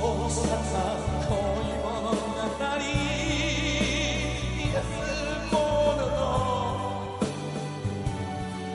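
Live ballad performance: a male singer holds long, wavering notes over a band's accompaniment with a steady bass line.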